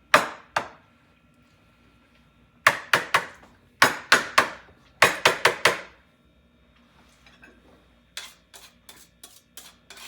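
Sharp kitchen knocks in clusters of two to four, each with a short ringing tail, followed near the end by a run of lighter, quicker taps.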